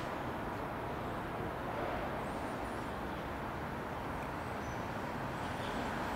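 Steady outdoor background rumble, like distant traffic, with a couple of faint high chirps about two and five and a half seconds in.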